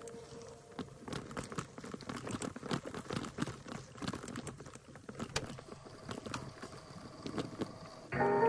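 Bicycle rolling fast over a dirt trail: tyres crunching on dirt and dry leaves, with many irregular clicks and rattles from the bike. Music cuts back in near the end.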